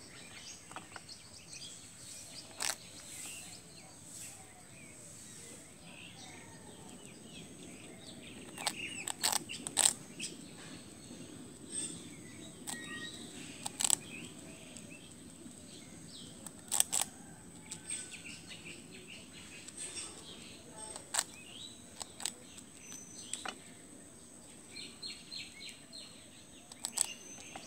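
Hard toast cracking and crunching under an animal's bites: sharp, separate snaps every second or two, with a cluster of them near the middle. Small birds chirp in the background over a steady high-pitched whine.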